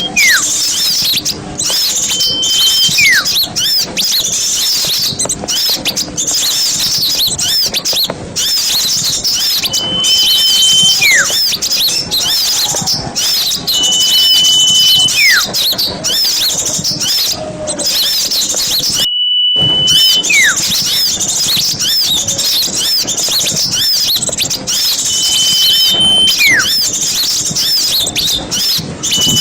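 Small songbirds twittering in a dense, rapid, high chatter. Over it comes a repeated call: a held whistle, then a single falling note, about every four seconds. The sound cuts out for about half a second roughly two-thirds of the way through.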